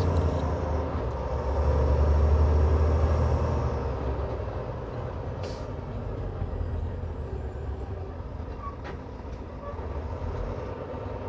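Semi truck's diesel engine running low and steady inside the cab, swelling a little about two seconds in, then easing off, with a couple of faint clicks.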